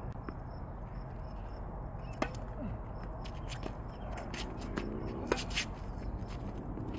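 Tennis balls struck by rackets and bouncing on a hard court during a rally: a few sharp pops a couple of seconds apart, the loudest about two seconds and five seconds in.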